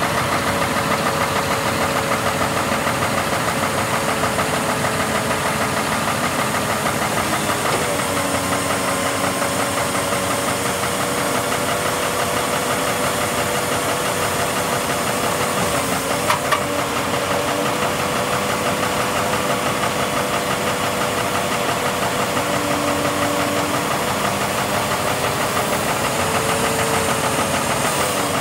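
Scania 470 hooklift truck's diesel engine running steadily while its hydraulics fold the hook arm down. The engine note shifts slightly a couple of times as the arm moves, and there is one short click about halfway through.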